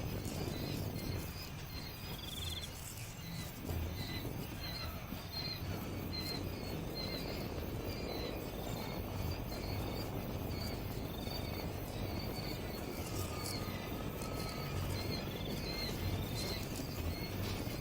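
Outdoor ambience: small birds chirping with many short, repeated high calls, and insects trilling, over a steady low rumble.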